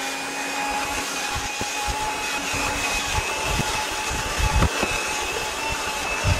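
Handheld Dustbuster vacuum running steadily with a high whine and a rush of suction, cleaning car floor carpet, with scattered low thumps.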